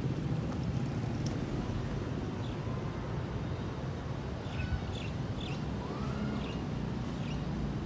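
Outdoor ambience: a steady low rumble with a few faint bird chirps in the second half.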